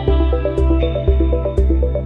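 Background music with a steady deep beat about twice a second and quick runs of short repeating melody notes.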